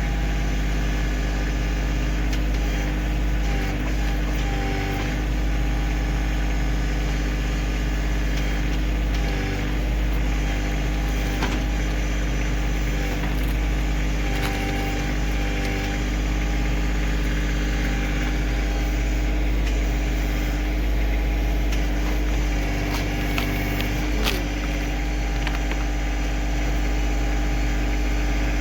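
Kioti CK2610 tractor's three-cylinder diesel engine running steadily under the backhoe's hydraulic load, with a few short metallic knocks, the clearest about eleven and twenty-four seconds in.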